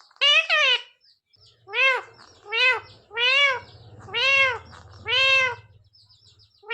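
Ringneck parrot calling: a short wavering call, then five drawn-out calls about a second apart, each rising and falling in pitch, meow-like.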